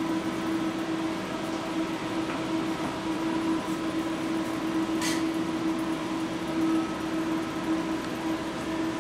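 Robot-mounted milling spindle running steadily as it machines a mold, a constant pitched whine over an even hiss. A brief sharp tick about five seconds in.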